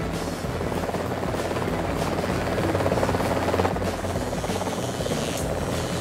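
Helicopter running, its rotor blades chopping rapidly in a steady, fast pulse.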